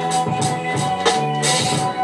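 A beat playing back over studio monitors: a steady drum pattern over held low and mid notes.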